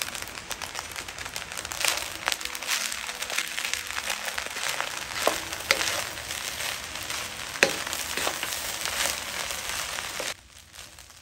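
Rice frying in a pan with a steady sizzle, with scraping and tapping as a wooden spatula turns the rice. The sound drops off sharply near the end.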